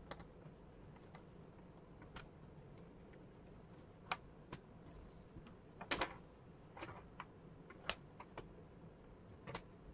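Wooden jigsaw puzzle pieces clicking and tapping against the table and each other as they are picked up and fitted in: about a dozen irregular, sharp clicks, with a cluster about six seconds in the loudest.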